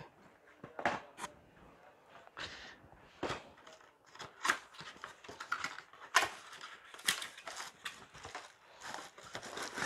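Cardboard box and its packing being handled and opened: scattered rustles, scrapes and light clicks as a boxed manual mincer is unpacked.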